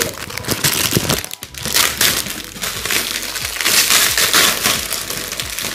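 Plastic packaging bag crinkling and rustling as it is handled, loud and crackly, with a short lull about a second and a half in.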